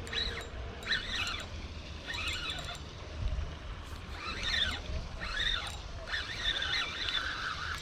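Birds calling, short squeaky chirps with bending pitch that come again about once a second, over a steady low rumble.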